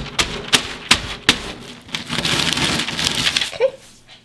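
Vanilla wafer cookies cracking and crunching under a marble rolling pin rolled over parchment paper: sharp cracks for the first second or so, then a dense crunching rustle as the pin rolls, dying away near the end.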